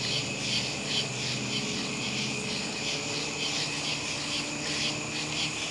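Chorus of night insects chirping in a steady rhythm, about three pulses a second, over a continuous high-pitched trill.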